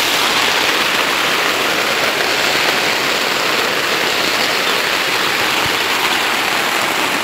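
Steady rain falling on a tent, heard from inside it: an even hiss that does not let up.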